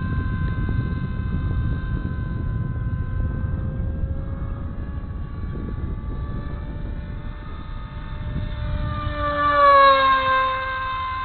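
RC Bixler's electric pusher motor and propeller whining steadily in flight, a rough, sickly note that the pilot puts down to the poor-quality stock prop. Near the end the whine swells and drops in pitch as the plane passes close.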